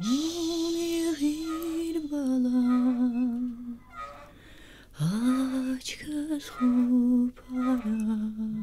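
A woman's voice humming a slow, wordless lullaby melody, held notes sliding up into each phrase, with a short break about four seconds in before the tune resumes.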